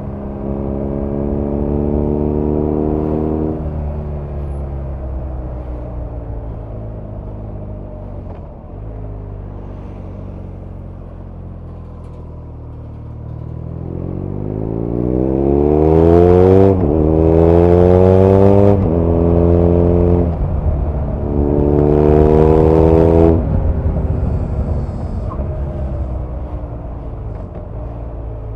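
BMW R nineT's air/oil-cooled boxer twin under way, heard at its exhaust. It pulls briefly, then eases off. From about halfway it accelerates hard, with two quick upshifts heard as sudden drops in pitch, and it is loudest there. Near the end it rolls off the throttle.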